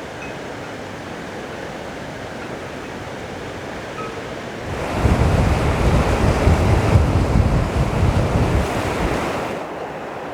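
Wind blowing over the microphone, with a stronger gust buffeting it for about five seconds in the middle before easing off.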